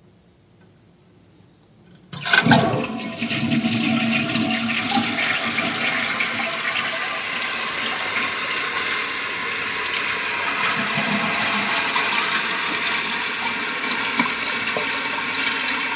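Toilet with a newly installed Korky 4010PK repair kit flushing about two seconds in: a sudden gush of water, then a steady rush of water as the toilet refills.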